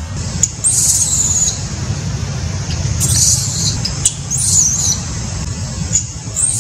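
Newborn macaque crying in several high, wavering cries, each falling in pitch and lasting under a second. A steady low rumble runs underneath.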